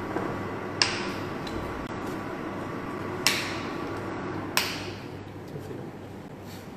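Three sharp clinks of kitchen utensils, about a second apart at first and then closer, each with a short ring, over a steady background hum.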